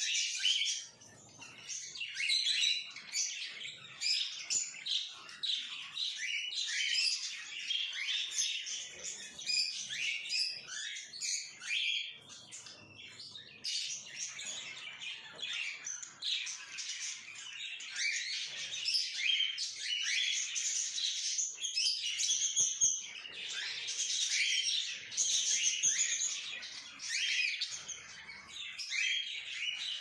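Many small caged pet birds chirping and chattering at once: a dense, unbroken stream of quick, high calls.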